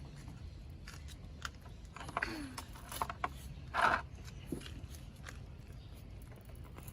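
Scattered small clicks and scrapes of a tire plug insertion tool being pushed through a tire's tread, with a short falling squeak a little after two seconds and a louder brief scrape just before four seconds in.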